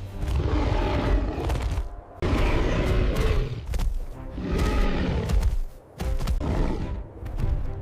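A series of deep creature roars, each swelling for a second or two with short breaks between them, over dramatic background music.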